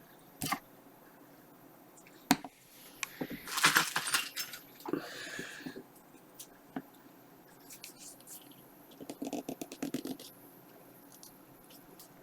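Scattered light clicks, clinks and rattles of small hard parts being handled, busiest about three to four seconds in, with a quick run of ticks and soft taps near the end.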